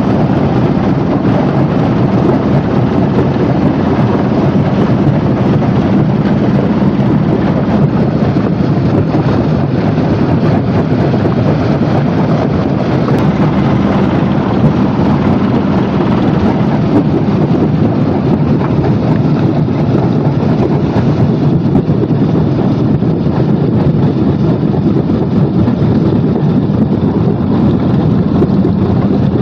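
Heavy machinery running steadily: a loud, unbroken rumble with a low hum underneath.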